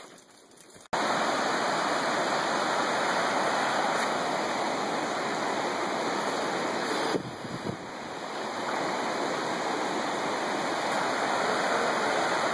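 Steady rush of a river's rapids. It starts abruptly about a second in and dips briefly a little after the middle.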